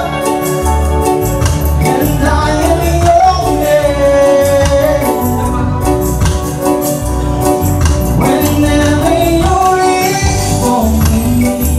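Live reggae band playing: a man sings into a microphone over heavy bass, keyboards and drums.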